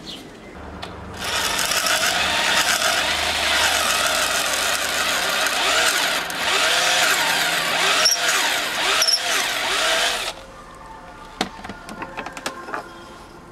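Power drill boring a hole into a wooden twig, giving a steady rasping drone for about nine seconds before stopping abruptly. A few light clicks follow.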